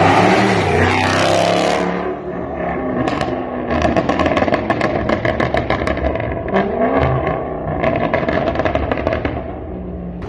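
Tuned Range Rover Sport (Stage 1, 550 hp, with downpipe) accelerating hard for about two seconds. On lift-off the exhaust gives a long run of rapid pops and crackles while the revs fall and pick up again. This overrun crackle comes from the stage 1 tune and downpipe.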